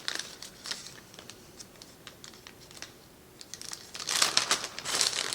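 Plastic packaging crinkling as it is handled, with a few light clicks at first and a denser, louder crinkling from about four seconds in.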